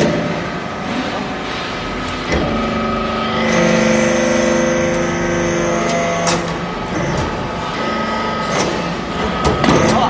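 Hydraulic aluminum-chip briquetting press running as its ram presses the chips: a steady machine whine, with a deeper drone joining from about three and a half seconds in for roughly three seconds. Sharp clunks come at about two, six and nine and a half seconds.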